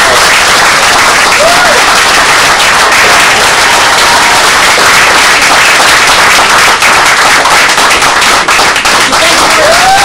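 Theatre audience applauding loudly and steadily after a magic trick's reveal.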